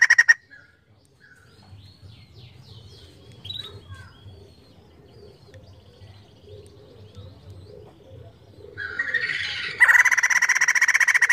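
White-crested laughingthrush calling. A loud, fast chattering call cuts off about half a second in, then faint chirps and squeaks follow for several seconds. Near the end the rapid chatter builds again, loud.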